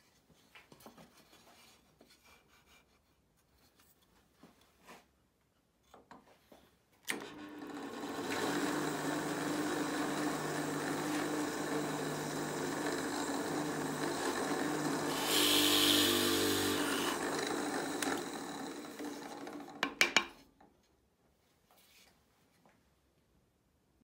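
Bench drill press motor starts and runs steadily with a hum for about thirteen seconds while a Forstner bit bores a hole in a wooden piano key for a lead weight. The cut grows louder and hissier for a moment about two-thirds of the way through, then the motor switches off. A few faint handling clicks come before the motor starts.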